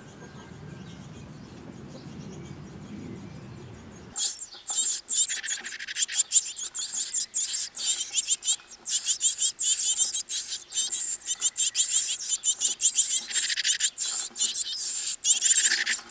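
Great tit nestlings begging inside the nest hole, a dense, high-pitched chorus of rapid calls that starts abruptly about four seconds in. Before it there is only a low steady background rumble.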